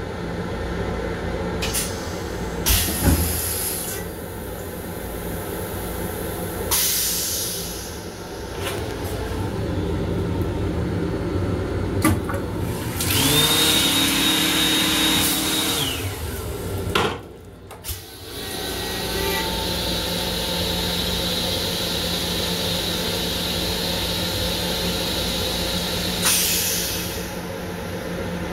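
Running noise of an LIRR M7 electric railcar heard inside its small restroom, with a few knocks and clicks. For a few seconds about halfway through, the sink faucet runs water with a loud hiss.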